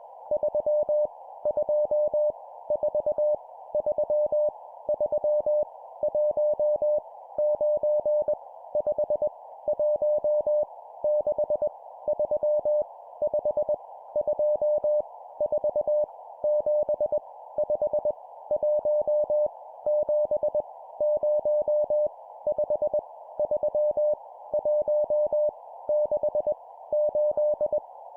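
Morse code (CW) practice tone sending random numbers at 20 words per minute: a steady mid-pitched beep keyed in even groups of dots and dashes, one digit about every second, with a faint hiss like receiver noise behind it.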